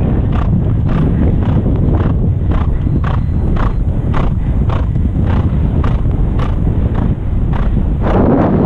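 A horse galloping across turf: a steady drumming of hoofbeats, about two and a half strides a second, over heavy wind rumble on the helmet microphone. About eight seconds in, a louder rush of wind on the microphone covers the hoofbeats.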